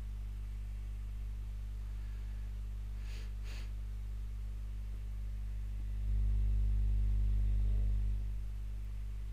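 Steady low electrical hum, growing louder for about two seconds near the end, with two faint short hisses around three seconds in.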